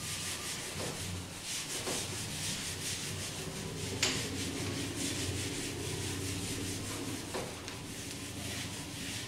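Whiteboard eraser wiping marker ink off a whiteboard in rapid back-and-forth strokes, a steady scrubbing hiss, with one sharp tap about four seconds in.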